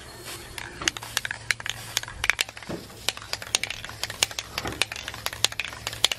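Aerosol spray can hissing as it sprays finish onto sanded redwood bench boards, with many sharp, irregular clicks and crackles throughout.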